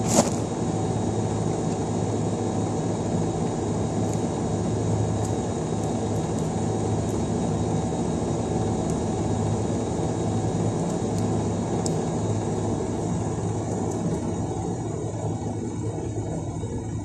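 Outdoor air-conditioner condensing unit running with a steady low hum, with one sharp click right at the start.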